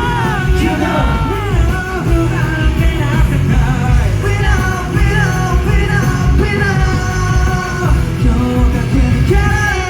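A Japanese boy group singing a pop song live over loud music with heavy bass, through a concert PA system, with shouted vocal lines among the singing.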